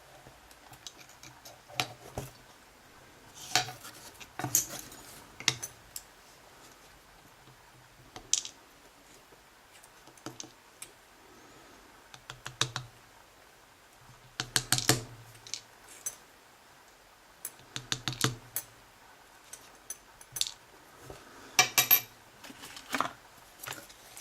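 Irregular metallic clicks, taps and small clatters of a lock and tools being handled during disassembly, coming in short clusters with gaps between; the loudest cluster comes near the end.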